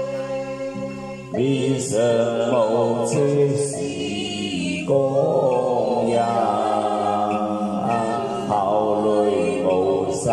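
A man singing a slow, chant-like Chinese Buddhist verse (gatha) into a microphone over a sustained instrumental backing. The backing chords play alone at first; the voice comes in about a second and a half in, with a wavering, sliding pitch.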